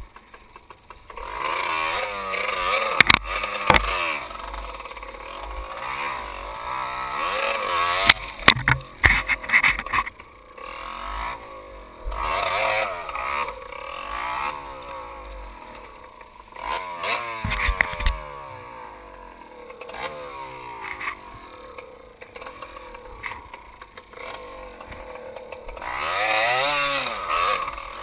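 Dirt bike engine revving up and down repeatedly as the bike is ridden over rough ground. Several sharp knocks and clatter from the bike and camera mount cut through.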